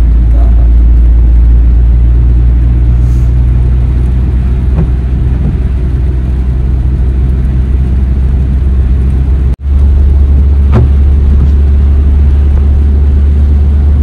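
Mazda3 driving along a road: a steady, loud, low rumble of the car in motion, with a brief dropout about ten seconds in.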